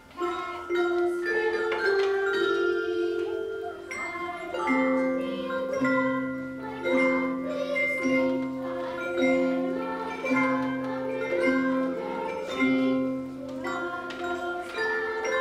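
Children's ensemble of mallet instruments playing a traditional tune in an arrangement, the notes starting right at the beginning. From about five seconds in, a low bass figure repeats about once a second under the melody.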